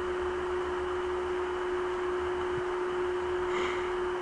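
A steady hum at one pitch over an even background hiss, with a brief faint chirp about three and a half seconds in.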